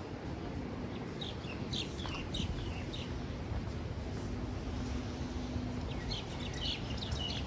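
Small birds chirping in two short bouts of quick high chirps, over a steady low outdoor background noise.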